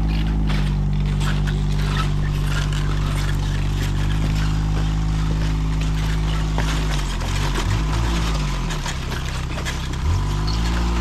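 An engine or motor running steadily at a low pitch; about seven seconds in its pitch dips and wavers, then it comes back up near the end.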